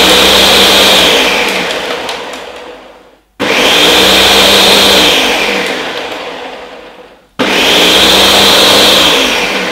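Ninja BL642 Auto-iQ blender crushing ice in its pitcher on the automatic frozen-drinks program, which runs the motor in pulses. Each burst starts abruptly at full speed and winds down over a few seconds, restarting twice, about every four seconds.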